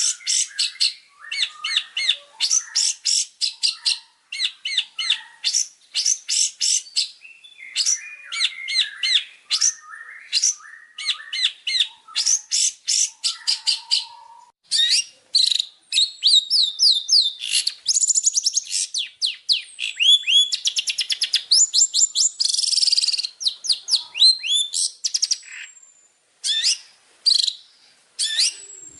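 Long-tailed shrike (cendet) singing a rapid, varied song: fast runs of sharp chirps and trills in bursts with short pauses, with a few gliding whistles in the second half.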